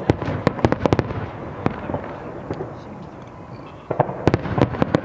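Fireworks going off: a rapid cluster of sharp bangs and crackles, then a lull, then another cluster of bangs about four seconds in.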